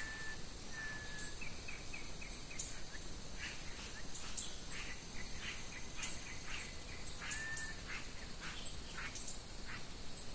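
Wild birds calling: a few short held whistles, a quick run of chirps, then many short repeated calls, with very high thin chirps above them throughout.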